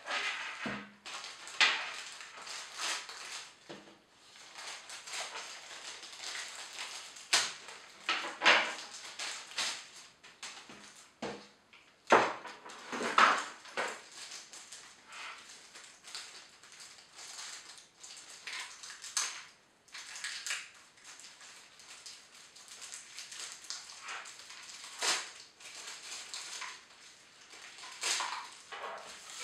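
Thin plastic packaging film crinkling and rustling in irregular bursts as it is handled and pulled off a new pair of over-ear headphones, with a few sharper clicks in between.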